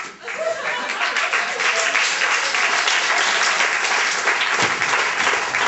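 Applause from many people clapping, filling in about half a second in and then holding steady.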